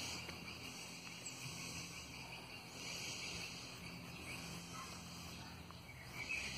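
Faint scraping of a small carbon-steel bushcraft knife shaving thin curls down a split stick of wood to make feather sticks, over a steady chorus of insects.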